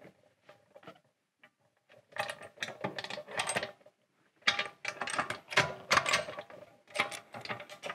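Steel lid of a resin-casting pressure pot being seated and its swing-bolt clamps with wing nuts swung up into place. This gives clusters of metallic clicks, clanks and rattles, starting about two seconds in.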